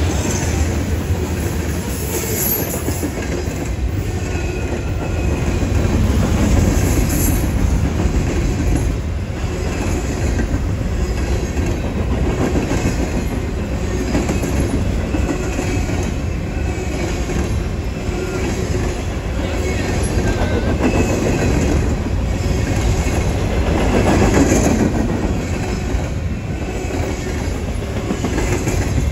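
Freight cars rolling past close by: loaded covered grain hoppers, then empty trash container cars. Their steel wheels rumble steadily on the rail, with a repeating clack about once a second.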